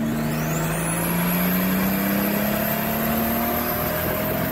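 Turbocharged car engine pulling under acceleration, its note climbing slowly, with a turbo whistle that rises sharply in about the first second and then holds high.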